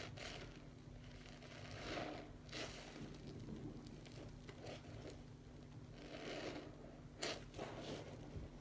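Soapy foam sponge squeezed and worked by hand in sudsy water: irregular wet squishes and swishes, with sharper squelches about two and a half and about seven seconds in.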